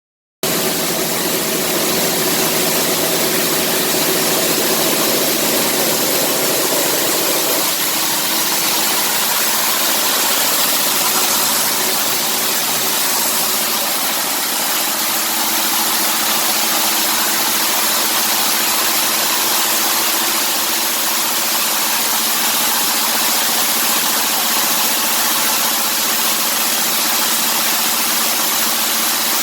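Small locally built coffee huller machine running steadily, hulling dried parchment coffee: a loud, even mechanical hum and hiss with steady tones. It starts abruptly, and the pitch of its hum shifts down slightly about a quarter of the way in.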